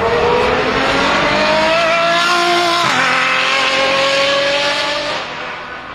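Apollo Intensa Emozione's naturally aspirated V12 accelerating hard past. The pitch climbs, drops sharply with an upshift about three seconds in, climbs again, then fades as the car pulls away.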